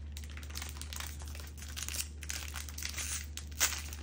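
Thin plastic wrapper of a soft-baked fruit snack bar crinkling and crackling as it is pulled open by hand, with one sharper, louder crackle near the end. A steady low hum runs underneath.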